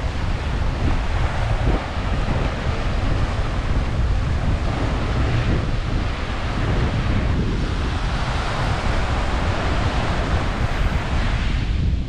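Ocean surf breaking and washing up a sandy beach, swelling twice, with strong wind buffeting the microphone underneath.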